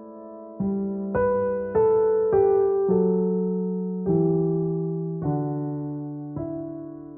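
Slow, soft piano music: single notes and chords struck every half second to a second or so, each left to ring and fade before the next.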